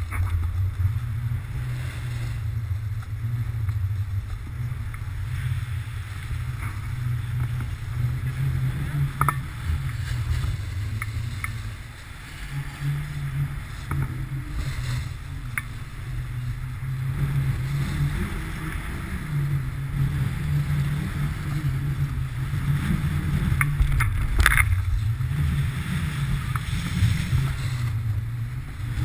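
Wind buffeting the microphone of a pole-mounted GoPro as a snowboard slides and carves over snow, a low rumble that swells and dips with the turns under a scraping hiss. Two sharp clicks cut through it, the second and louder one late on.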